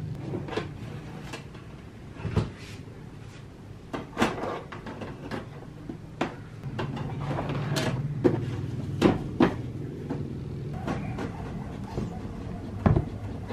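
A run of sharp clicks and knocks from handling a desktop printer: a cable plugged in and a sheet of paper set into its rear feed tray. A steady low hum runs for about three seconds in the middle.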